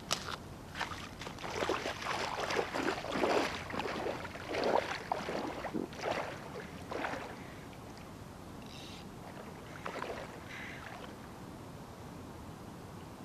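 Irregular splashing footsteps of a person wading into shallow lake water, then it goes quieter with only a couple of faint splashes.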